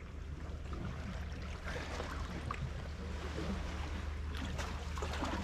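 A steady low engine-like drone with an even hiss of water washing over it.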